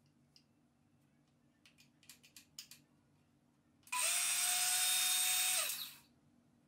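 Makita HS301D CXT cordless circular saw switched on and run free in the air with no cut for about two seconds: a loud steady whine that ends quickly as the trigger is released and the blade winds down. A few light clicks of handling come before it starts.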